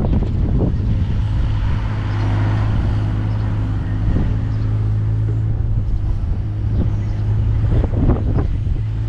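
Takeuchi TB216 mini excavator's diesel engine running at a steady hum under working revs, with a few sharp knocks and clatters of the bucket and soil about half a second in, around four seconds and again near the end.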